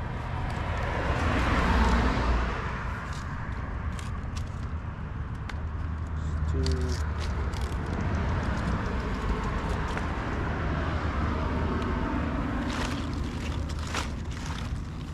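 Outdoor traffic noise, a steady low rumble with one vehicle swelling past about two seconds in, and scattered light clicks and rustles from handling close by.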